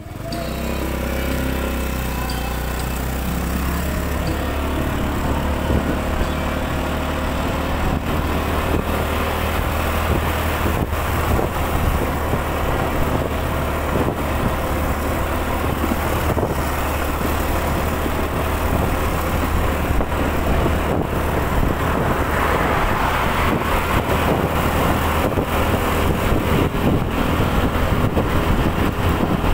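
Motorcycle engine running as the bike rides along a road, with a steady rush of wind on the microphone.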